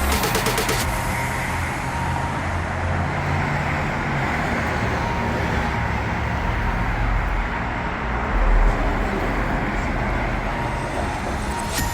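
Road traffic passing: a steady rush of tyre and engine noise, with a low rumble that swells about two-thirds of the way through as a vehicle goes by.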